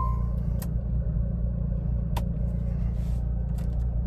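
Car engine idling, heard as a steady low rumble from inside the cabin, with a couple of light clicks about half a second and two seconds in.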